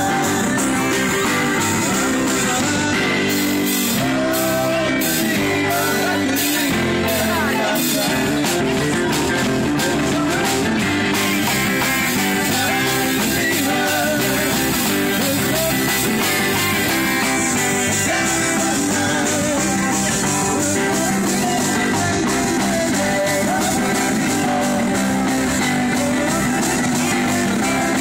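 Rock-and-roll music with guitars and singing.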